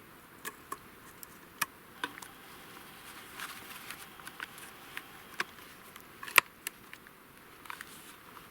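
Steps crunching in snow: irregular sharp crunches and clicks, the loudest a little past six seconds in, over a faint steady hiss.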